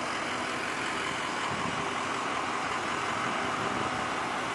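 Steady outdoor background noise: an even, unbroken hiss with no distinct events.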